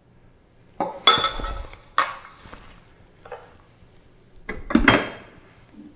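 Glass vessels being handled and set down: several clinks and knocks, some ringing briefly, the loudest about a second in and again near the end as the glass carafe goes under the Keurig coffee maker's spout.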